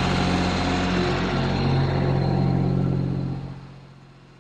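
Kioti compact tractor's diesel engine running steadily, then fading away about three and a half seconds in.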